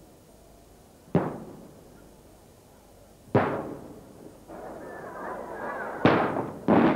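Aerial firework shells bursting overhead: single booms about two seconds apart, each echoing away, then a noisy rush followed by two booms in quick succession near the end.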